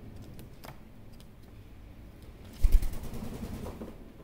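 A superb parrot (Barraband parakeet) taking off in flight: a sudden burst of wing flaps about two and a half seconds in, with a deep thump of air at the start, lasting about a second. Before it come a few faint clicks.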